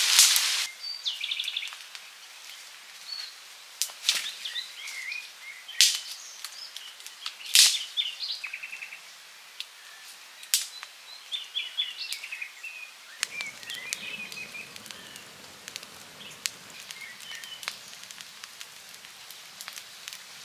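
Sharp knocks or snaps every few seconds, like work on wood, with birds chirping and trilling between them. A soft low rustle comes in about two-thirds of the way through.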